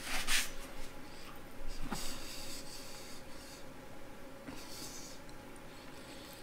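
Close-miked chewing of fried chicken, with soft scattered mouth noises. Near the start, a brief loud rustle of a paper napkin being rubbed between the fingers.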